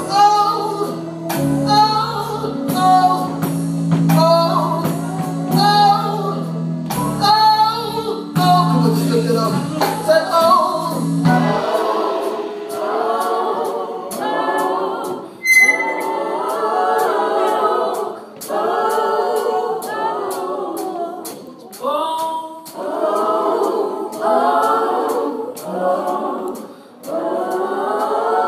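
Gospel praise-and-worship singing: lead vocalists on microphones with the congregation joining in through a church sound system. Held low instrumental chords sound under the first eleven seconds or so, then the voices carry on alone, a cappella.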